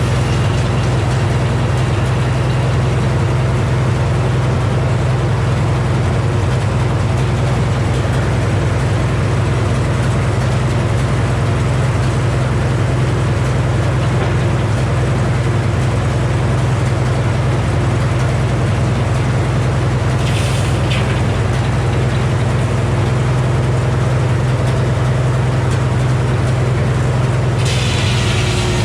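Engine of a Frick sawmill's power unit running steadily at constant speed, with a steady low hum. A hiss starts up shortly before the end.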